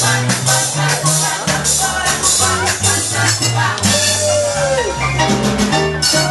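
Salsa music with a moving bass line and steady hand percussion, and a short falling glide in the melody about four seconds in.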